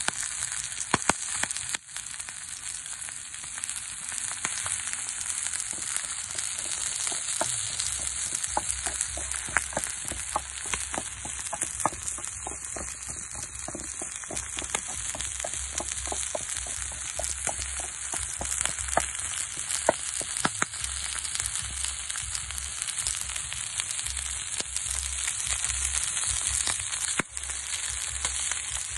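Whole eels frying on a hot metal sheet over a wood fire: a steady sizzle with many small pops and crackles, busiest through the middle.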